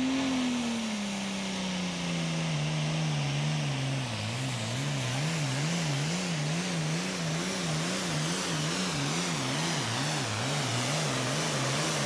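International Harvester 1066 Super Farm pulling tractor's turbocharged diesel engine running flat out under load while pulling the sled, with a broad rush of noise over the engine note. The pitch peaks at the start and falls over the next few seconds, then wavers quickly up and down, about twice a second, for the rest of the pull.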